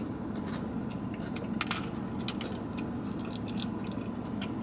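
Someone eating sushi: scattered light clicks and scrapes from the takeout container and utensils, over a steady low hum.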